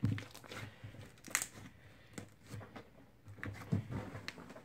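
Homemade crunchy slime being squeezed and pressed by hand against a wooden desk, giving irregular crackling and popping clicks with a few soft thumps.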